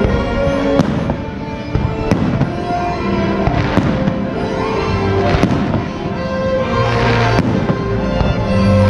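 Fireworks shells bursting, several sharp cracks a second or two apart, over the show's music.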